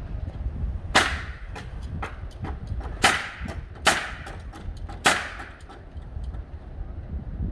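Pneumatic nail gun firing four loud shots into plywood roof sheathing, one to two seconds apart, with lighter knocks and taps in between.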